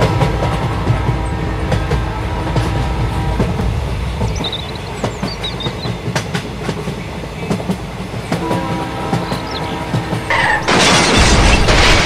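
Toy train running on its track: a steady low rumble with scattered clicks. About ten and a half seconds in, a loud crash as the train collides with the toy tractor.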